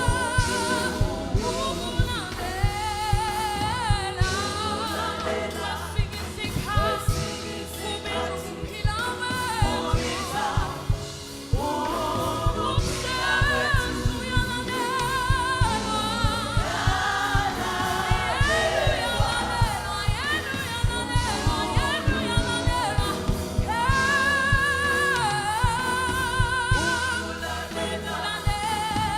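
Gospel music: singing with vibrato over a band with a steady drum beat.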